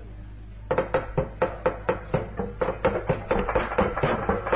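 Javanese gamelan in pelog tuning starting up a piece: after a brief pause, quick, even strokes of drum and struck instruments begin under a second in, and a held higher note joins past the middle.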